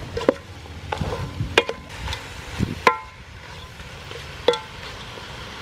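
A wooden spatula stirs chicken pieces in curry paste in a large metal pot. It knocks against the pot's side about four times, and each knock sets the pot ringing briefly.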